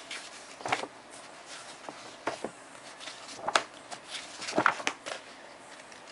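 Pages of a softcover science textbook being flipped by hand: a handful of short paper rustles and flicks spread across the few seconds.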